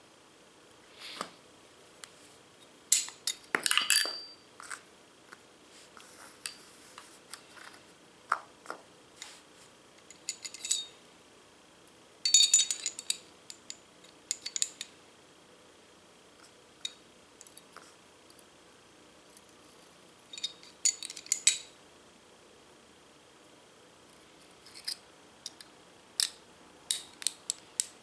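Metal parts of a Beretta pistol clicking and clinking as it is handled and taken apart: scattered sharp clicks in small clusters, the loudest a few seconds in, about twelve seconds in and about twenty-one seconds in.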